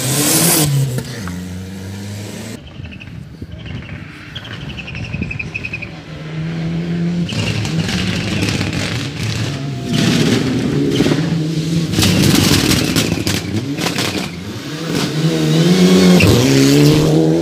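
Rally car engines at full race pace. One car passes loudly right at the start and its note fades away. The next car is heard approaching, its engine revving up and down through gear changes and braking, and it passes close and loud near the end.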